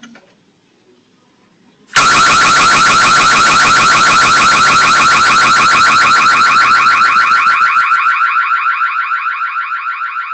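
Electronic security alarm siren that starts suddenly about two seconds in and sounds very loud with a fast, even warble, easing off slightly near the end.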